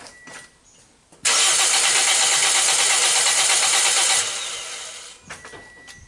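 Toyota 1NZ four-cylinder engine cranked on its starter for about three seconds with a compression gauge screwed into cylinder one, turning over without starting. The cranking begins abruptly about a second in, stops about four seconds in and dies away over the next second.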